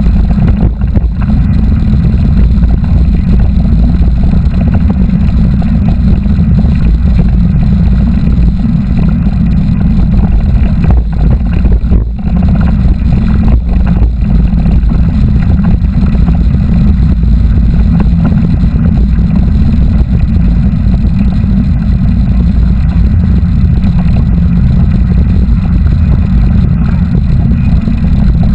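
Loud, steady low rumble of wind buffeting and rolling noise picked up by a camera riding on a moving mountain bike.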